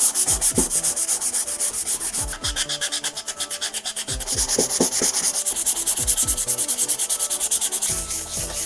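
Fast back-and-forth hand sanding with a 320-grit sanding sponge, scuffing the white painted panels of a bench power supply's case to key the surface before repainting: quick rasping strokes, several a second.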